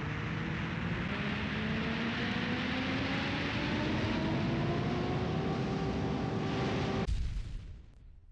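Intro sound effect: a rising whine with a few overtones over a loud rushing noise, climbing steadily like a jet spooling up, then cutting off about seven seconds in and fading away.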